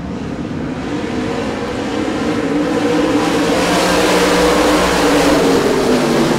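A field of USRA Modified dirt-track race cars running hard, their V8 engines growing louder over the first few seconds as the pack comes closer, then holding loud.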